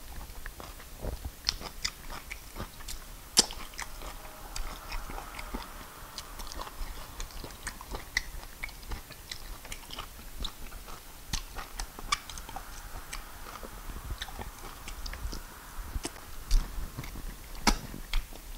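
Mouth sounds of a person eating fufu with peanut soup by hand: chewing with many short, sharp clicks and smacks.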